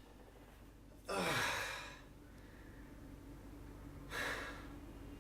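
A person sighs twice, a breathy exhalation about a second in and a shorter one about four seconds in.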